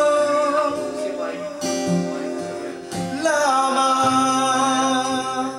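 Solo acoustic guitar strummed, with a man singing over it: a long held note that trails off about a second in, then another sustained sung line from about three seconds in.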